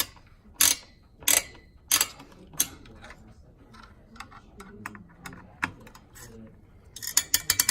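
Screwdriver clicking as it turns the spring-loaded mounting screws of an AMD stock CPU cooler: a sharp metallic click about every two-thirds of a second, then softer ticks, then a quick run of clicks near the end.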